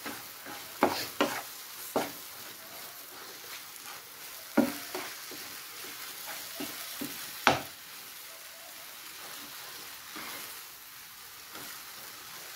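Wooden spatula stirring and scraping thick psyllium husk halwa around a non-stick frying pan, over a steady low sizzle as the halwa cooks down and thickens. Several sharp knocks of the spatula against the pan stand out, the loudest about one, four and a half and seven and a half seconds in.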